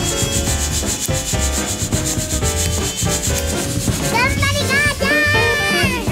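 Green coffee beans rattling and scraping inside a lidded wire-mesh hand roaster shaken back and forth over a charcoal brazier, in a fast, even rhythm: the beans being hand-roasted. About four seconds in, a young child squeals in a high voice that slides up and down.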